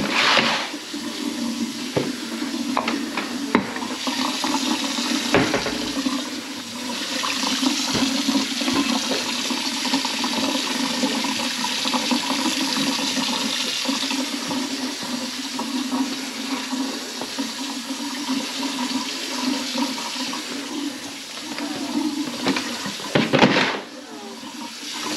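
Water running into a kitchen sink and rushing down its drain in a steady flow, with a few knocks.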